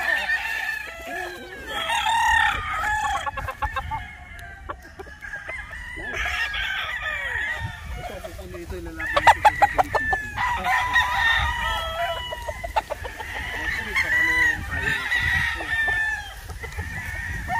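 Many gamecocks crowing over one another, with clucking between the crows. A quick run of sharp claps lasting about a second, a little past the middle, is the loudest sound.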